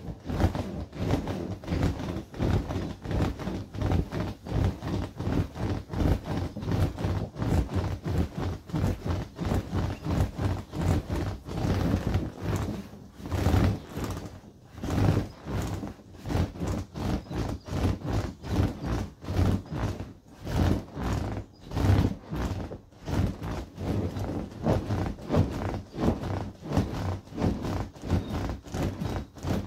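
Inflatable vinyl ride-on wolf toy thumping and rubbing in a steady rhythm, about two or three bounces a second, as a rider bounces on it.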